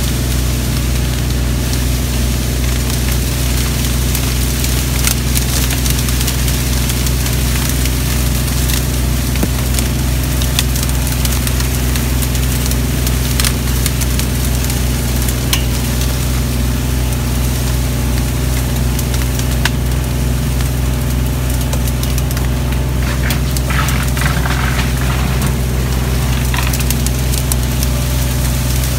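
Kubota tractor and DR Power mower engine running steadily while mowing through tall grass and reeds. Scattered crackles of stalks snapping and brushing against the machine run over the even engine hum.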